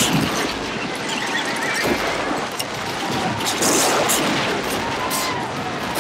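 Battle-scene sound mix: a steady din with high squealing cries and a few sharp cracks of gunfire in the second half.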